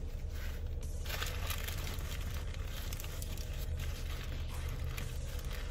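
Paper sandwich wrapper crinkling as it is handled, growing louder about a second in, while a person chews food close to the microphone. A steady low hum runs underneath.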